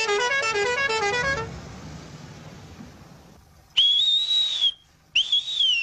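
A man's loud two-finger whistle, blown twice: a high note held about a second and rising slightly, then a shorter one that drops in pitch at the end. Before it, the last notes of a short stepped tune fade out.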